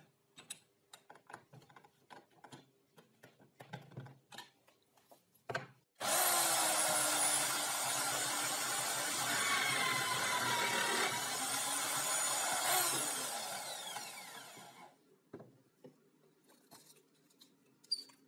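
Power drill mounted in a homemade wooden drill-press stand starting abruptly about six seconds in and boring a hole into a small wood block for about seven seconds, then spinning down and fading out. Before it, light clicks and knocks of the chuck and the wood being handled.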